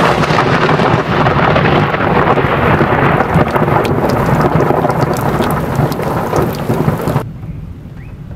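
Heavy rain pouring down, with close drops pattering sharply and a deep low rumble under it. About seven seconds in the sound drops off abruptly to a much lighter rain.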